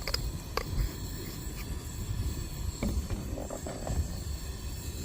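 Wind rumbling on the microphone, with a few sharp clicks and a short stretch of light rattling about three seconds in from handling a coffee grinder being set to a coarser grind.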